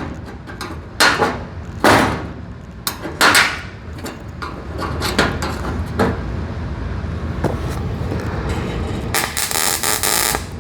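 MIG welder tack-welding a sheet-steel panel seam while the panels are held flush. A few short sharp bursts come in the first few seconds, then a steadier crackle that grows into a loud dense burst of welding near the end.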